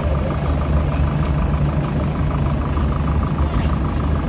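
Steady engine drone on an airport apron, low and even, with a faint steady high whine above it.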